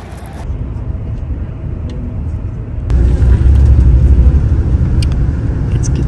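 Steady low rumble of a coach's engine and tyres while driving, heard from inside the cabin. It grows louder about three seconds in.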